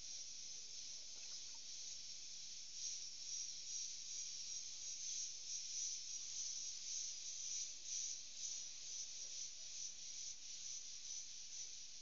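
A dense chorus of insects in the forest: a high, steady hiss with a fine flicker to it, growing louder about three seconds in.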